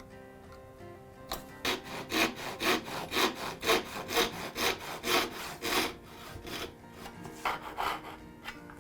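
Hand saw cutting through wood in quick, even strokes, about two a second, starting about a second in; the strokes grow lighter and sparser near the end as the cut finishes.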